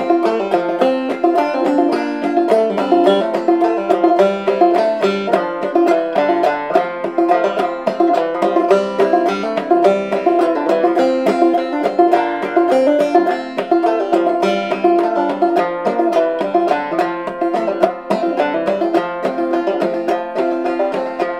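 1903 Fairbanks Whyte Laydie #2 five-string banjo with a pie-plate resonator, played clawhammer style in F tuning (fDGCD): an instrumental break of quick plucked melody notes and sharp brushed strums in a steady rhythm.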